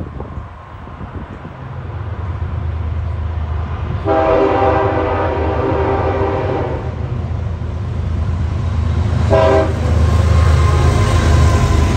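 CSX diesel freight locomotives approaching and passing, their engines rumbling louder as they near. About four seconds in the multi-chime air horn sounds one long chord blast, and it gives a short blast near the end.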